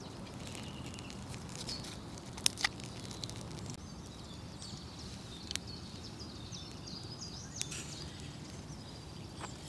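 Dry driftwood twigs cracking sharply a few times as kindling is laid on glowing embers, over a steady low outdoor rumble, with small birds chirping.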